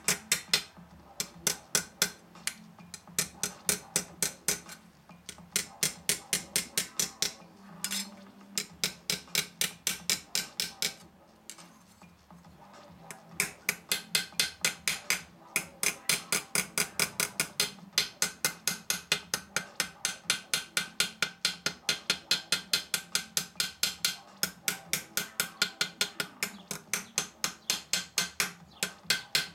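Small planishing hammer tapping a silver buckle on a metal stake head: quick, even taps about three a second, with a short pause about halfway through. The taps set down the soldered-on details and edges so that nothing catches.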